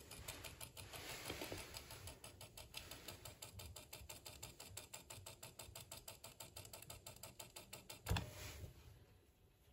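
Soviet Vesna-202 cassette recorder running with its tape mechanism giving a faint, fast, even ticking, several ticks a second. About eight seconds in there is a louder knock, and the ticking stops.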